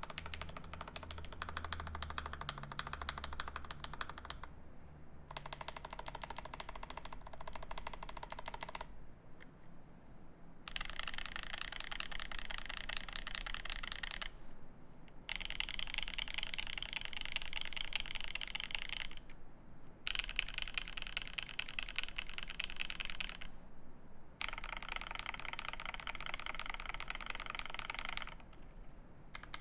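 Fast typing on a custom mechanical keyboard with lubed switches, a quick run of clacking keystrokes. It comes in stretches of a few seconds with short pauses between them, and some stretches sound brighter than others.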